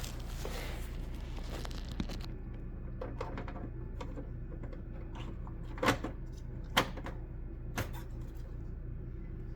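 Steady low hum with a few sharp clicks and knocks, the loudest two about six and seven seconds in.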